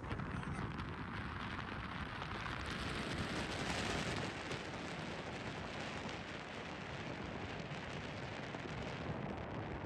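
Steady rushing noise of wind on the microphone and water from a boat under way, swelling a little a few seconds in.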